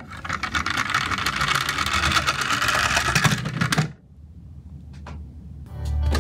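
Toy truck's spring-and-gear drive motor whirring, a fast, dense ticking whirr as the truck is pressed on the table and released to run across it, cutting off abruptly about four seconds in. Background music starts near the end.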